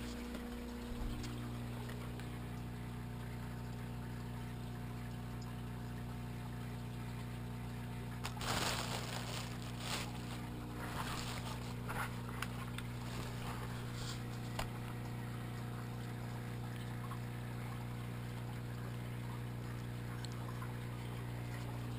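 Steady electrical hum with a faint trickle of water. A brief rustling burst comes about eight and a half seconds in, followed by a few scattered clicks.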